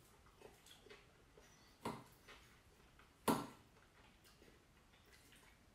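Metal fork clinking and scraping against a ceramic salad bowl while picking up salad: two sharp clinks, about two and three seconds in, the second louder, with a few faint ticks between.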